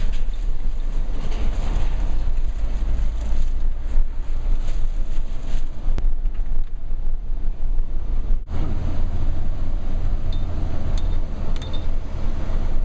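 Road vehicle driving, heard from inside the cabin: a steady low rumble of engine and road noise, broken by a momentary dropout about two-thirds of the way through.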